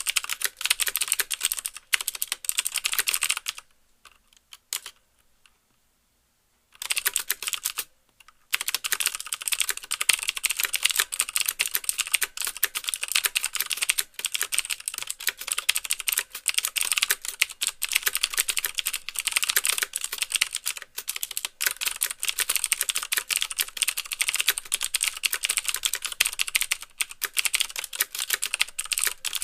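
Fast typing on a CM Storm QuickFire Stealth mechanical keyboard with Cherry MX Blue switches: each keystroke gives the switch's click and the clack of the key bottoming out. The typing stops for about three seconds a few seconds in, pauses briefly again, then runs on steadily.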